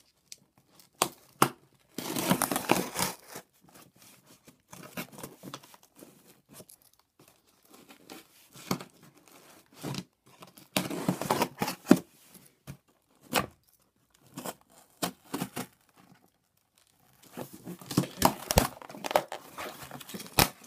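Packing tape being slit and torn off a cardboard shipping box, in irregular bursts of tearing and scraping with sharp clicks and crinkling, the longest stretch near the end.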